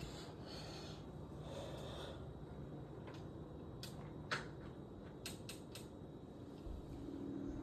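Faint outdoor background rumble broken by about six short, sharp clicks in the middle, one louder than the rest. A low steady engine-like hum comes in near the end.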